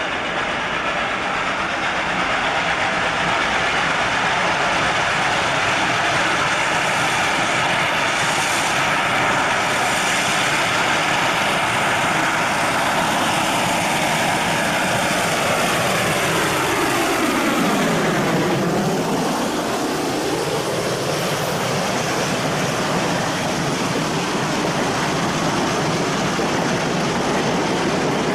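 Reading & Northern 425, a 4-6-2 Pacific steam locomotive, running loudly as it comes round the curve and passes close by, followed by its passenger cars rolling past on the rails. The steady rush of sound takes on a sweeping whoosh, falling and then rising, as the engine goes by about two-thirds of the way in.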